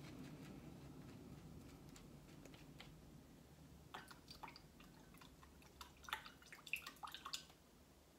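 Faint wet swishing of a makeup brush being worked over a silicone brush-cleaning mat. About four seconds in come a run of light clicks and taps as things are handled on the table.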